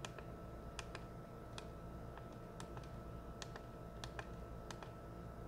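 About a dozen light, irregular clicks of the small buttons on a FrSky Taranis radio transmitter as its telemetry menu is worked to discover sensors, over a faint steady electrical hum.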